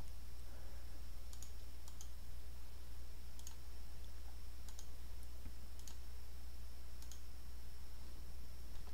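Computer mouse clicking, about six faint clicks spaced roughly a second or so apart, as clips are selected and moved with on-screen arrow buttons. A steady low hum and a faint high whine run underneath.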